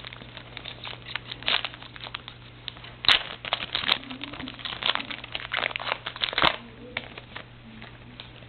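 Trading card pack wrapper crinkling and cards being handled: a run of rustles and sharp clicks, with the loudest clicks about three seconds in and again about six and a half seconds in.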